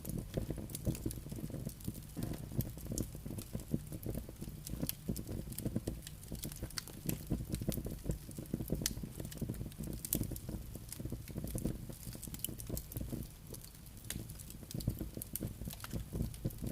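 Campfire burning with dense, irregular crackles and pops of the wood over a steady low rumble of wind and flames.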